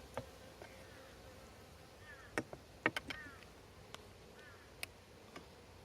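Honeybees buzzing faintly around an open hive, a few flying close past, with several sharp clicks and taps scattered through.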